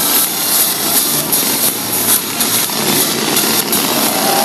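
Firework fountains on the ground spraying sparks: a loud, dense, steady hiss with scattered faint pops.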